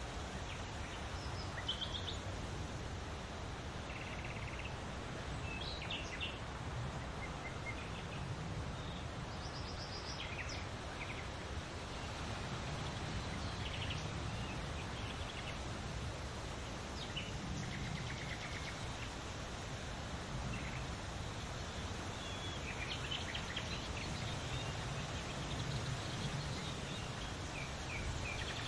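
Small birds singing in short, scattered chirps and trills over the steady hiss of wind rustling through leaves, with a low wind rumble underneath.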